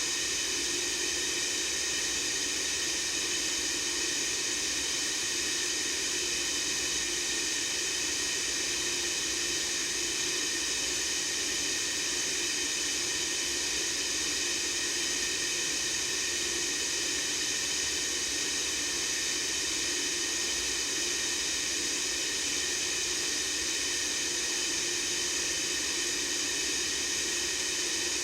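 Steady white noise, a constant hiss that does not change, strongest in the high range.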